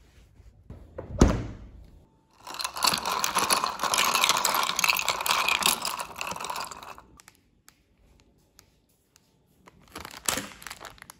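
A soft thump as a plush pillow topples over onto a bed about a second in. Then several seconds of iced coffee being stirred with a metal spoon in a glass, a dense clatter of spoon and ice. Near the end comes a short crinkle of plastic snack packets being handled.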